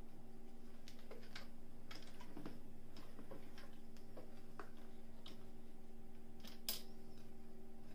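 Scattered light clicks and taps of fabric being handled and set under the presser foot of a Singer 457 Stylist sewing machine, with one sharper click near the end, over a steady faint hum. The machine is not stitching.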